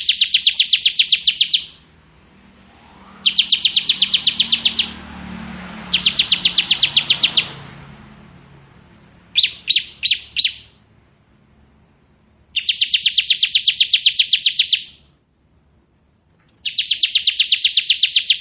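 Ciblek kristal, a prinia, singing its rapid drilling "ngebren" trill: bursts of quick, evenly repeated high notes, each lasting one and a half to two seconds and coming every few seconds. About ten seconds in, one phrase breaks into four separate sharp notes.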